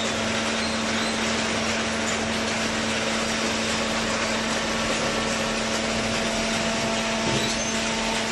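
Hydraulic baler running: a steady machine noise with a constant low hum.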